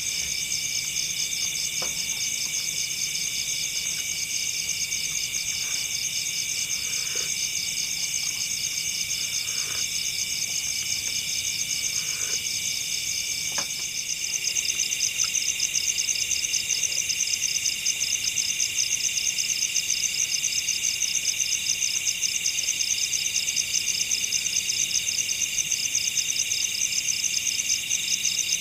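Dense chorus of night insects, crickets, with several rapid pulsing high-pitched trills layered together; it gets louder about halfway through. A few faint taps sound in the first half.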